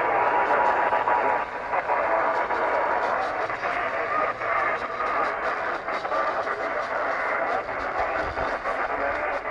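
Radio reception with heavy hiss and crackle, an Emergency Alert System required monthly test barely audible under the noise.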